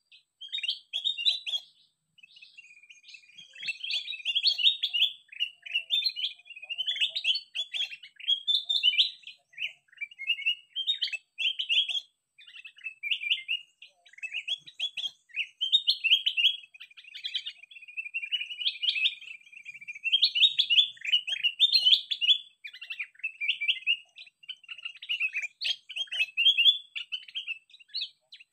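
Recorded kutilang emas (a bulbul) song played from an MP3 player as a lure call: a near-continuous run of quick chirped and whistled phrases, repeating with only short breaks.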